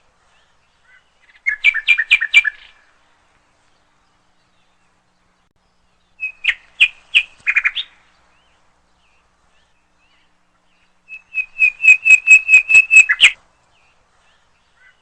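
Nightingale singing: three phrases of rapid, repeated sharp notes, each lasting a second or two, with pauses of several seconds between them.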